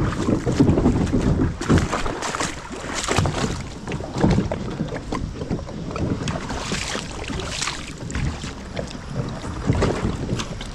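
Kayak moving through shallow creek water: splashing and water noise with irregular knocks, plus wind on the microphone.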